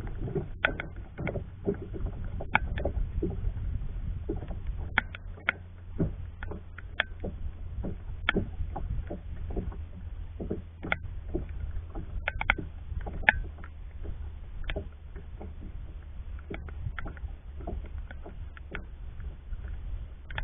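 Small waves lapping and slapping irregularly against the plastic hull of a kayak, several light knocks a second, over a steady low rumble.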